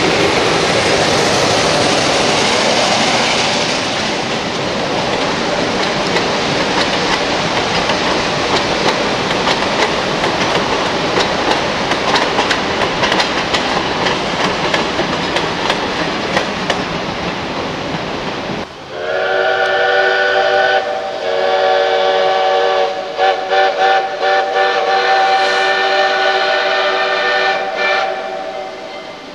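Freight cars and a caboose of a steam-hauled logging train rolling past, wheels clattering on the rails. About two-thirds of the way through, a multi-chime steam locomotive whistle sounds a chord of several tones at once, with a few brief breaks, and fades near the end.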